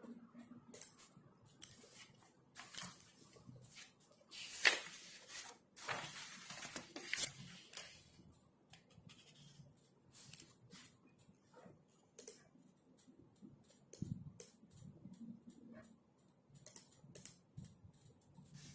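Typing on a computer keyboard: a run of light key clicks, with a louder rustling stretch from about four to eight seconds in.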